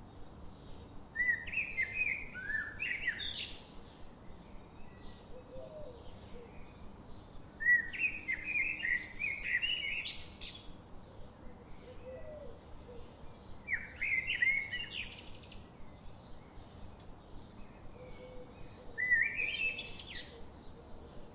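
A bird singing four short bursts of quick chirps, each phrase climbing to a higher note at its end. Faint chirping and a steady hiss continue between the bursts.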